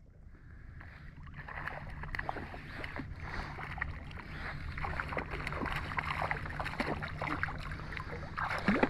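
Shallow salt water sloshing and splashing around a wading angler's legs, with many small splashes and a low steady rumble underneath, and a louder burst near the end.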